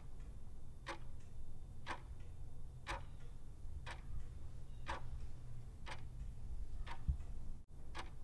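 Clock ticking as a countdown-timer sound effect, about one tick a second over a low steady hum, counting down the time given to answer a quiz question.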